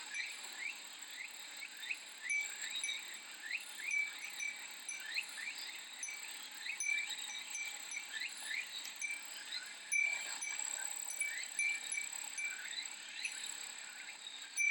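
Japanese furin wind chime giving short, repeated high dings over a steady, high-pitched drone of cicadas.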